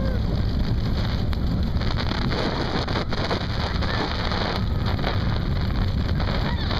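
Expedition Everest roller coaster train running fast along its track outdoors: a steady, loud rumble of wheels on rail mixed with wind buffeting the microphone.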